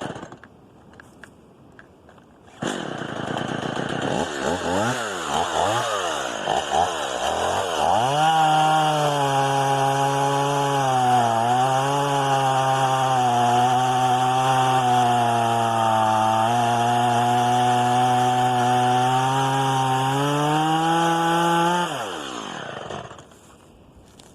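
A two-stroke chainsaw starts up a couple of seconds in and revs up and down, then runs at full throttle through a cut, its pitch sagging now and then under load. Near the end it is let off and winds down to a stop.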